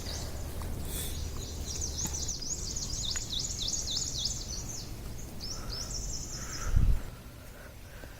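A songbird singing a long, rapid, high-pitched string of repeated down-slurred notes, then a shorter phrase a moment later. There is a low rumble of wind or handling on the phone microphone, and a single low thump near the end.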